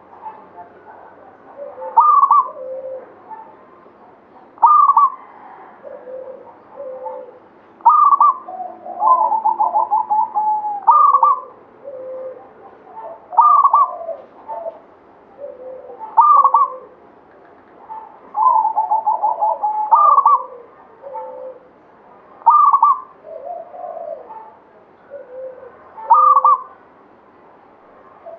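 Zebra dove (perkutut) cooing its song: a rolling coo phrase repeated every two to three seconds, twice drawn out into a fast stuttering run of notes.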